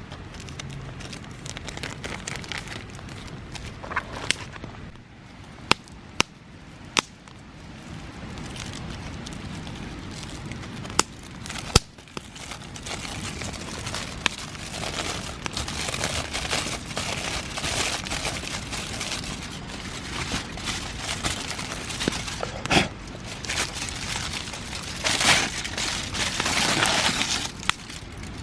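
Wood fire crackling, with scattered sharp snaps and pops over rustling handling noise. The sharp snaps stand alone in the first half and give way to denser crackling and rustling in the second half.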